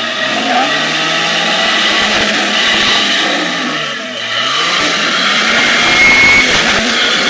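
Motor vehicle engine revving hard, over a loud rushing noise. Its pitch climbs, drops about four seconds in, then climbs again.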